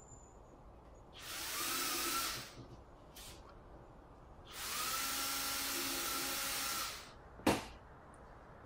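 Power drill running in two bursts, a short one and then a longer one of about two seconds, its motor whine rising as it spins up and then holding steady, followed by a single sharp click.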